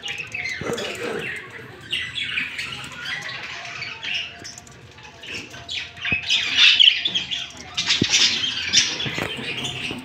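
Exhibition budgerigars chirping and chattering continuously in a busy tangle of short, warbling calls, louder in the second half.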